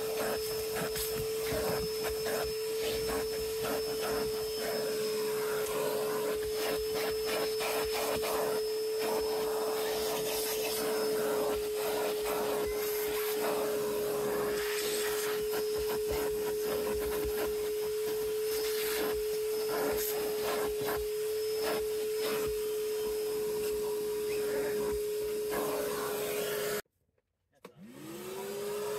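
Vacuum cleaner running with a steady motor whine, with scraping and clicking from the nozzle working over the truck's carpet. Near the end the sound cuts out suddenly for about a second, then the motor whine rises back up to speed.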